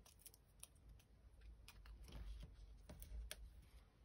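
Faint scattered clicks and light rustling of hands peeling small foam adhesive pads off their backing sheet and pressing them onto a paper circle on a wooden table.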